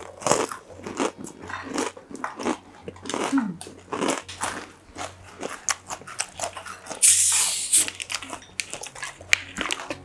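Close-miked crunchy chewing and biting, with many irregular crunches and a short hiss about seven seconds in.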